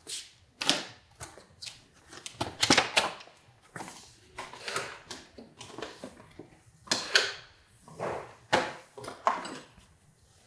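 A run of irregular clicks, taps and scuffs, a dozen or so short sounds a fraction of a second to half a second apart: hands handling tools and parts at a workbench.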